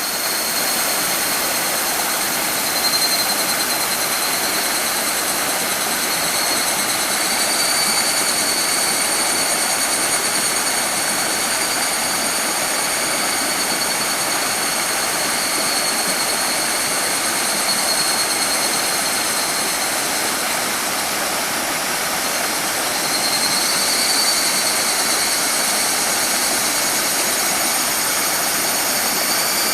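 Shallow mountain stream babbling steadily over rocks, with higurashi (evening cicadas, Tanna japonensis) calling high above it. The cicada calls swell several times.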